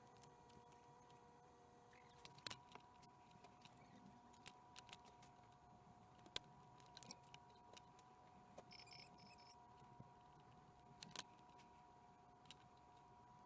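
Near silence: faint steady high tones with scattered soft clicks.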